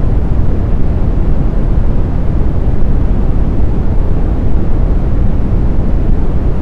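Synthetic brown noise: a steady, deep hiss with most of its weight in the low end, fading toward the highs, with no tones, pulses or changes.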